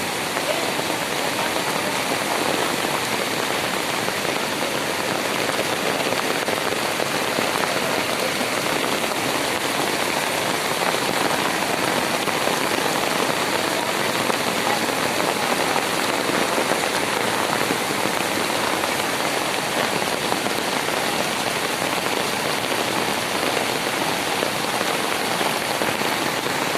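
Heavy rain falling steadily, a dense, even hiss of drops on surfaces.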